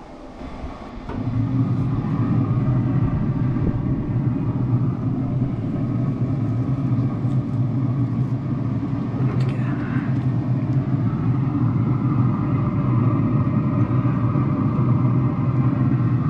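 Traeger 575 pellet smoker running at cooking temperature: its fan gives a steady, loud hum that comes in about a second in and holds level, with a few faint handling clicks near the middle.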